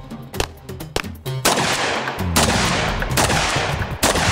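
Gunshots over guitar background music. From about a second and a half in, loud shots come roughly once a second, each ringing out in a long echo.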